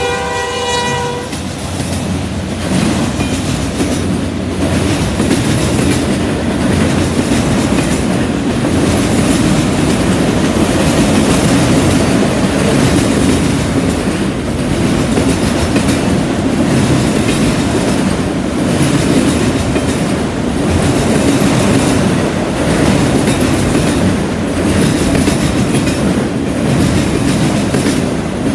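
A freight locomotive's air horn cuts off about a second in. It gives way to the loud, steady rumble and clatter of a long freight train's cars rolling past, with a rhythm about every two seconds as each car goes by.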